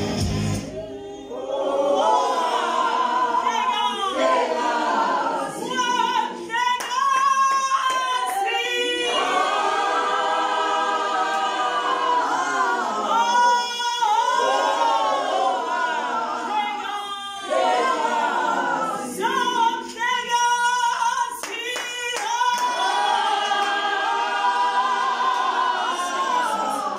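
A woman singing a church song unaccompanied into a microphone through a PA, with other voices joining in and a few hand claps.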